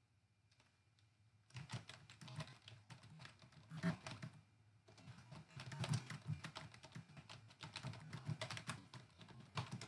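Typing on a computer keyboard: a quick run of key clicks starting about a second and a half in, a short pause near the middle, then a second, longer run of typing.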